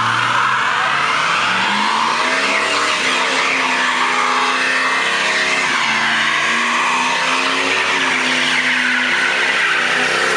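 A Dodge coupe doing a burnout. Its rear tyres squeal continuously as they spin in smoke, while the engine is held at high revs, its pitch climbing early on and then wavering up and down.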